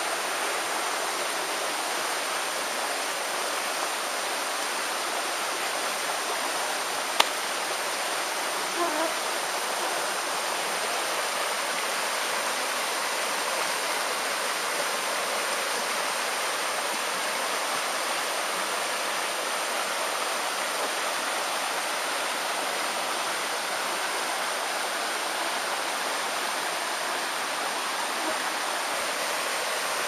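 A rocky creek rushing steadily over stones and small rapids. A single sharp click about seven seconds in.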